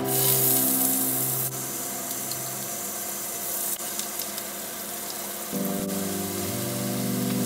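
Butter sizzling in a hot frying pan, loudest in the first second or so and then a softer steady sizzle as diced onion is tipped in and starts to fry. Background music plays under it.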